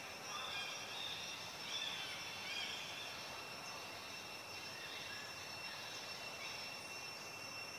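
Outdoor ambience: a steady high-pitched insect drone, with short chirping calls over the first few seconds.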